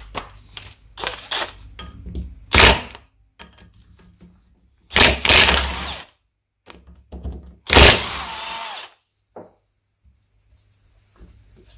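DeWalt brushless cordless impact wrench with a socket, undoing the big-end cap fixings of a Triumph Trident T150V connecting rod on the crankshaft. It runs in three bursts, a short one and then two of about a second each, with light metal clicks of tool and socket before them.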